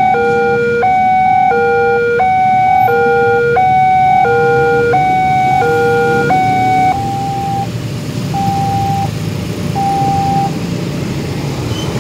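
Railway level crossing's electronic warning alarm sounding an evenly alternating two-tone ding-dong, each tone held about 0.7 s, while the crossing is closed. It stops about seven seconds in as the barrier lifts, leaving a few single tones until about ten seconds in, over the rumble of waiting road traffic and motorcycles.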